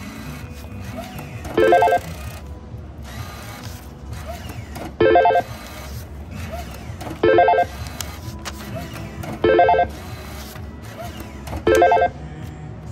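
Slot machine bill acceptor taking in five bills one after another. Each accepted bill sets off a short electronic chime as credits are added, five chimes about two to three seconds apart, over the steady din of casino background noise.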